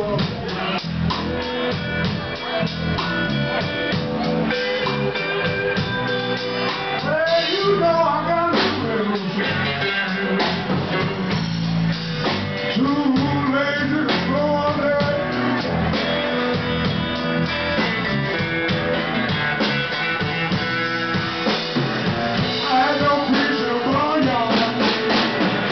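A live blues band playing: electric guitar over drums, with the guitarist singing into the microphone in places and notes bending and sliding.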